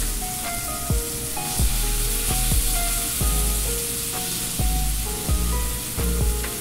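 Blackened mahi-mahi fillets sizzling in hot canola oil in a stainless steel skillet, a steady frying hiss. Background music with regular deep bass hits plays over it.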